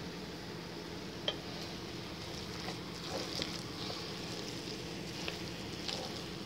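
Rice sizzling in a hot pot as it is stirred with a wooden spoon, a steady hiss with small crackles. One sharp click about a second in.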